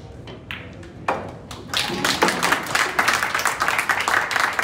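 A pool cue striking the cue ball and a couple of sharp knocks of the balls, then spectators clapping from under two seconds in, growing loud. The clapping marks the match-winning shot.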